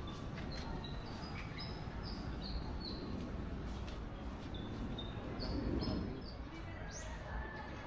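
A bird singing: runs of short, high whistled notes in two phrases, then a quick rising note near the end, over steady outdoor background noise.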